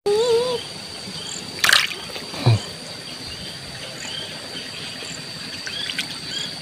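Hand splashing and sloshing in shallow, muddy pond water, with two short splashes about two seconds in. A brief wavering call is heard at the very start, and a steady, high insect drone with small chirps runs underneath.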